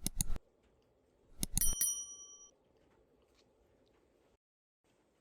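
Metal objects clinking: a few quick knocks at the start, then a second cluster of strikes about a second and a half in, the last of which rings briefly with a bell-like tone.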